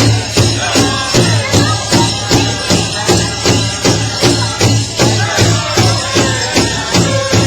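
Powwow drum group striking a large drum in a steady beat, about two strokes a second.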